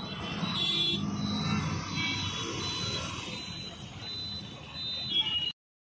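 Street traffic heard from inside a moving auto-rickshaw: a steady engine hum and road noise, with a few short high tones near the end. The sound cuts off abruptly about five and a half seconds in.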